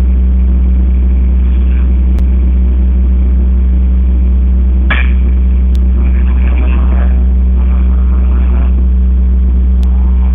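A loud steady low hum with a few steady tones, and one sharp crack about five seconds in; faint voices come and go after it.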